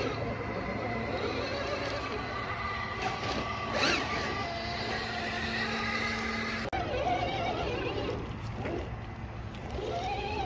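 Electric motor and gear whine of scale RC rock crawlers, rising and falling in pitch with the throttle as they crawl over the forest floor. A sharp rise and fall in pitch comes about four seconds in, and the sound drops out for an instant about two-thirds through.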